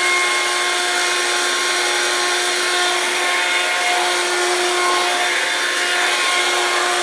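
Hoover Platinum Collection Linx 18-volt cordless stick vacuum running steadily: a motor whine with several steady tones over the rush of airflow.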